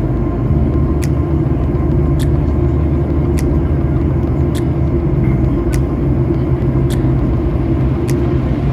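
Airliner cabin noise: the steady low rumble of the engines and airflow heard from inside the passenger cabin, with a faint sharp tick repeating a little less than once a second.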